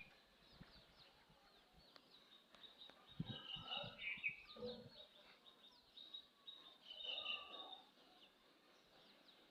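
Birds chirping: many short, high chirps throughout, with a few louder calls about three to five seconds in and again near seven seconds.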